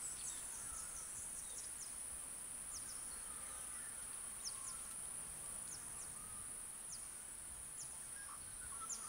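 Rural outdoor ambience: a steady, high-pitched insect drone, with short bird chirps scattered through it.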